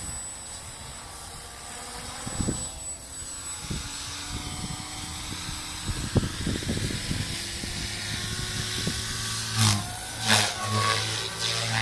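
Electric SAB Goblin 380 RC helicopter spooling up, the whine of its brushless motor and rotor rising in pitch over the first several seconds as it lifts off. About ten seconds in, two loud swells of rotor noise come as it climbs.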